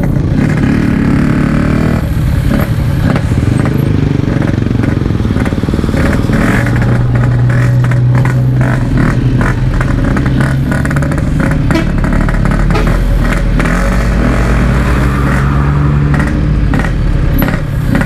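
Yamaha RX-King two-stroke single running under way through its Packing Power standard-style exhaust, its note holding steady for stretches and shifting with the throttle.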